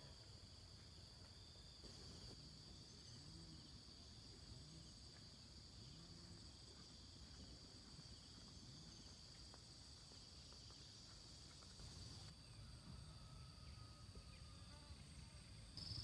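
Faint, steady high-pitched insect chirring over a quiet rural background.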